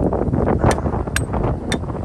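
Strong wind buffeting the microphone in a blizzard, with three sharp clicks in the second half.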